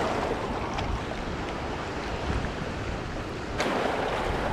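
Sea water washing and surging, with wind on the microphone; a louder surge comes in about three and a half seconds in.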